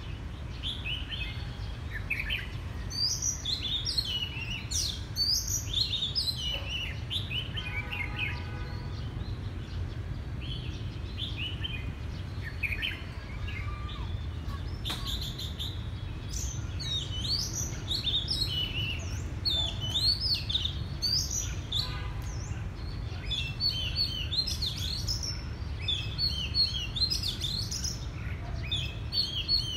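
Oriental magpie-robin singing a long run of varied whistled phrases and chirps, over a steady low rumble.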